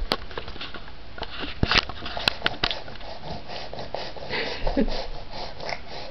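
A crawling baby right at a floor-level camera: several sharp knocks in the first three seconds as its hands bump and grab the device, with scraping and the baby's close breathing and small vocal sounds.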